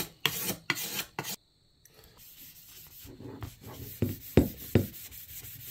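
Sandpaper rubbed by hand along a wooden axe handle in a few quick strokes. It then gives way to a quieter cloth rubbing finish into the handle, with two sharp knocks of the axe against the bench about four and a half seconds in.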